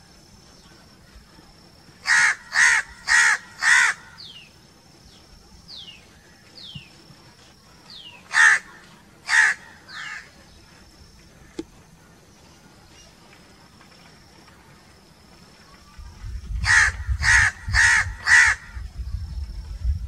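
House crows cawing: a run of four harsh caws about two seconds in, two or three more near the middle, and another run of four near the end.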